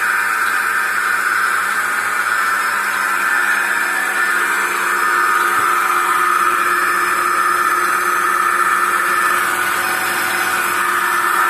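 Single-bucket milking machine's belt-driven 1.5 HP vacuum pump running steadily.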